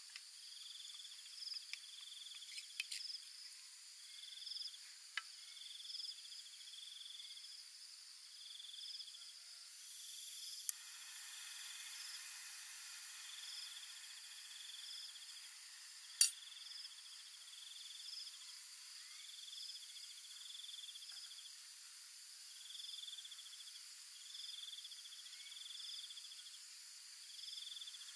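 Insects chirping in a steady repeating pattern, one high call about every second and a half. About ten seconds in, a click sounds and a steady hiss begins and carries on: a small camping gas stove being lit, its burner then running. A single sharp click sounds a few seconds later.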